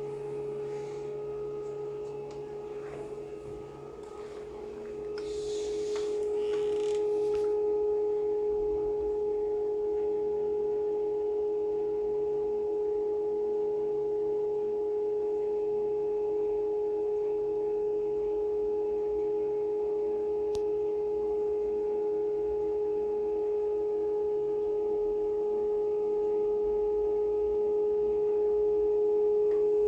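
Cruse planetary scanner's stepper-motor table drive running through a continuous scan: one steady high-pitched tone that grows louder about five seconds in and holds.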